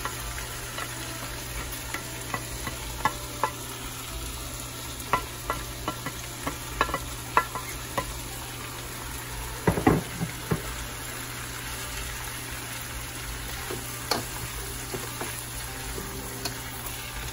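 Cabbage and carrots sizzling in a frying pan while a utensil stirs them, with irregular sharp taps and scrapes against the pan and a louder clatter about ten seconds in.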